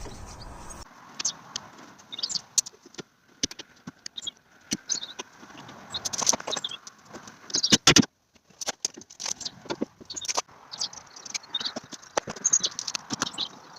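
Irregular sharp clicks, taps and knocks of plastic trim pieces and small hand tools being handled, as the van's door panel and window switch are fitted back together; the loudest knocks come together about eight seconds in.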